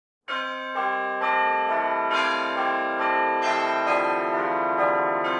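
Intro music of bell-like chimes: ringing notes struck one after another, roughly every half second, each ringing on under the next so they pile up.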